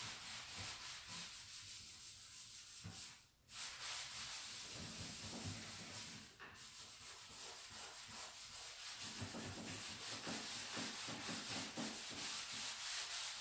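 Cloth rubbing wax into the chalk-painted wood of a nightstand, a steady scrubbing swish with two short breaks, about three and six seconds in.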